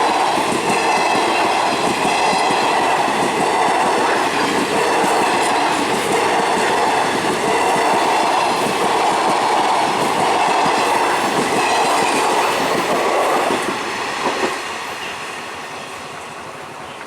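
Passenger train running past at speed, its wheels clattering over the rails with a steady rush of noise; about 14 seconds in the noise falls away as the train moves off.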